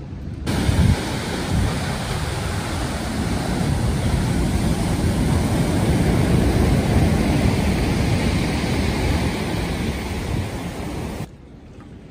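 Sea surf breaking and washing up a pebble beach, with wind buffeting the microphone. It starts suddenly just after the beginning and cuts off suddenly about a second before the end.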